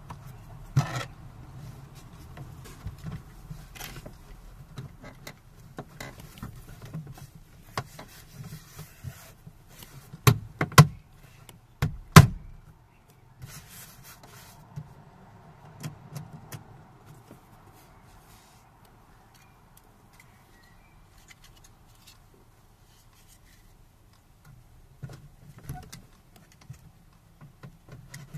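Scattered knocks and clicks of a plastic door trim panel being pressed and fitted onto a Renault Clio 1 door, the loudest knocks coming in a cluster about ten to twelve seconds in.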